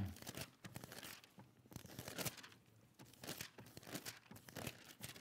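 Faint, irregular rustling of thin Bible pages being turned as the book is leafed through to a passage.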